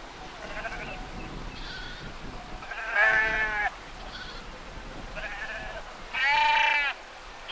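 A flock of sheep bleating: many faint overlapping calls, with two loud drawn-out bleats, one about three seconds in and one about six seconds in.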